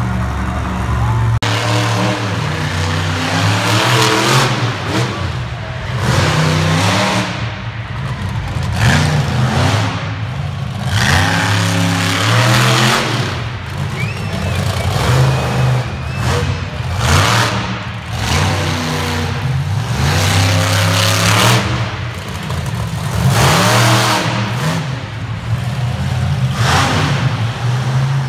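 Monster truck engine revving hard again and again, its pitch rising and falling, with a loud surge every two to three seconds as the truck accelerates across the dirt.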